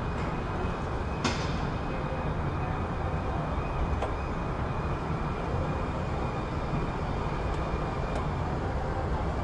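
Busy city ambience: a steady low rumble of vehicles. A sharp clack with a short ring comes about a second in, and a few fainter clicks follow later.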